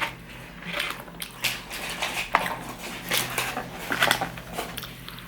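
Cutlery and dishes clinking at a meal table: scattered light clicks and knocks.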